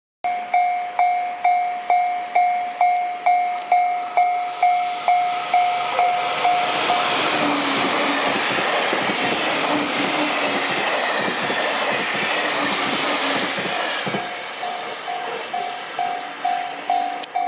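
A level-crossing warning bell rings about twice a second. A JR Kyushu 813/817 series electric train then passes at speed, its wheels clattering over the rail joints and drowning out the bell. The bell comes back in as the train moves away.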